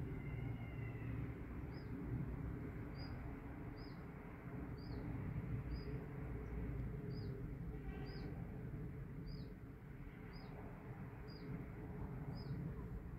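A bird calling with short, high, downward-slurred chirps repeated about once a second, over a steady low outdoor rumble.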